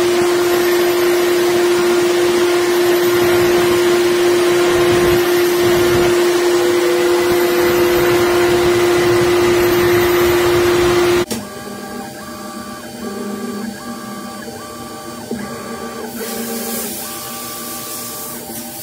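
CNC mill end mill cutting a large metal part under flood coolant: a steady tone from the cutter over the hiss of the coolant spray. About eleven seconds in it cuts off abruptly to a quieter machine sound with a short tone repeating about every two-thirds of a second.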